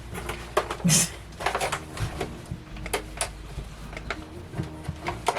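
Scattered clicks, taps and rustles of a new faucet being taken out of its packaging and handled.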